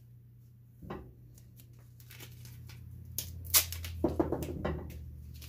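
Duct tape being handled, pulled off the roll and torn: scattered crinkles, then a run of crackling rips from about three seconds in, over a low steady hum.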